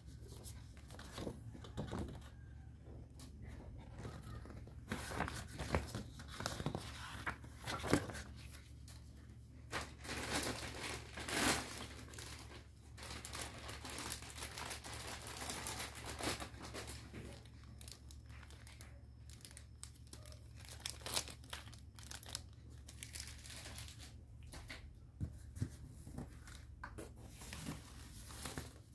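Hands rustling the thin foam wrapping sheet and paper leaflets inside a cardboard TV box, in irregular bursts, busiest in the first half.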